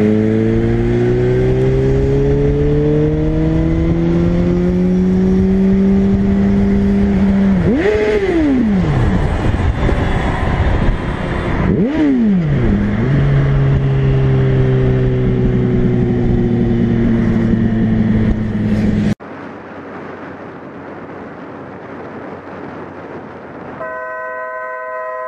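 Suzuki GSR motorcycle's inline-four engine, heard from the rider's seat, with its pitch climbing steadily under acceleration. The note dips sharply and recovers twice, then runs on steadily. It cuts off suddenly, leaving quieter road noise, and near the end a vehicle horn sounds.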